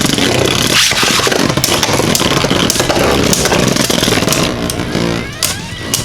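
Two Beyblade Burst spinning tops (Vise Leopard and Nightmare Longinus) whirring and grinding as they spin in a plastic stadium. Repeated sharp clacks sound as they collide.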